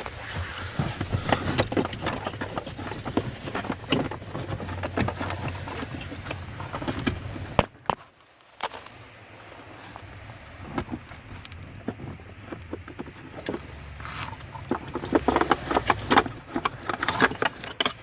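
Irregular clicks, knocks and scrapes of hand tools and parts being handled as an old blower motor resistor is worked free and taken out. There is a short lull about halfway through and a busier run of clicks near the end.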